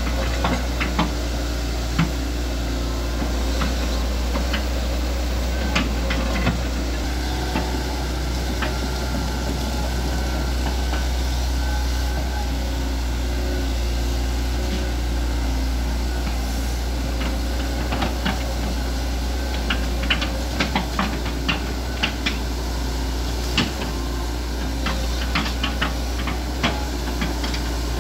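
Hitachi ZX110MF excavator's diesel engine running steadily during ditch work. Scattered sharp knocks come over it, growing more frequent in the last ten seconds.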